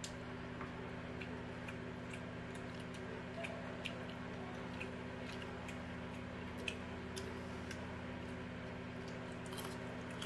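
Faint, irregular small clicks and ticks of people eating by hand from metal plates: fingers mixing rice and fish against the plate, with mouth sounds. A steady low hum runs underneath.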